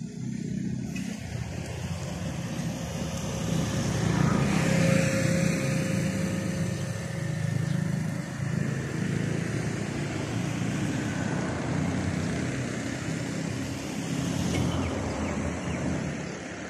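Road traffic: motor vehicles passing on a nearby road, a steady rushing noise that swells about four seconds in and again near the end.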